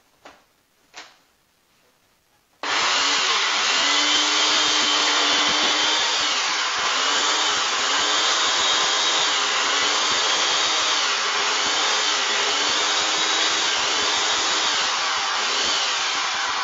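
Electric blender switched on about two and a half seconds in, running loudly for about fourteen seconds with its motor pitch wavering up and down, then switched off.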